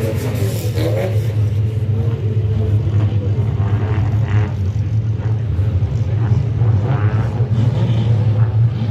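Stock car engines rumbling low and steady at the track, one engine's pitch falling away about a second in. Voices are faintly heard in the background.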